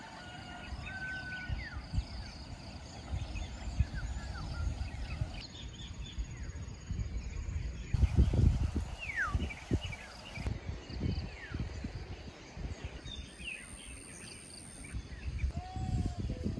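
Outdoor ambience: scattered bird chirps and short calls over an uneven low rumble, loudest about halfway through.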